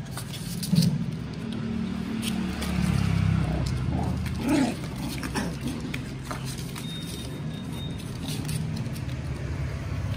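Puppies moving about on a cardboard floor, with scattered light scratches and clicks over a steady low rumble. A short puppy whimper comes about four and a half seconds in.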